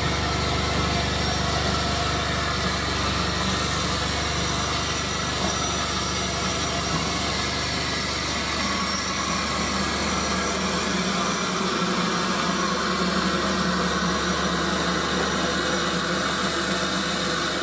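An engine idling steadily, its low note changing slightly about ten seconds in.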